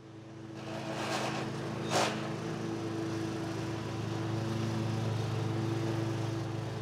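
Ride-on lawn mower engine running steadily, fading up from silence over the first second. A brief sharp click sounds about two seconds in.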